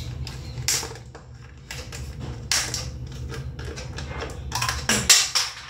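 Small plastic makeup items being handled and opened: a handful of short clicking, rustling clatters about a second apart, the loudest near the end, over a steady low hum.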